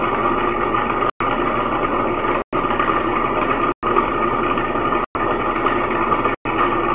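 Tabletop chocolate melanger (stone refiner) running with a steady mechanical hum while chocolate liquor is fed into its drum. The sound is broken by brief silent gaps about every second and a quarter.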